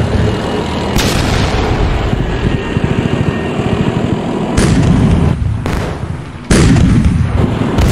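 Battle sound effects of heavy tank gunfire and shell explosions: a string of sudden deep booms, each trailing off in a long rumble. Fresh blasts land about a second in, again past the middle, and once more near the end.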